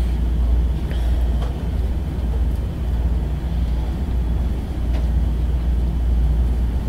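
Steady low rumble of room background noise, with a few faint clicks.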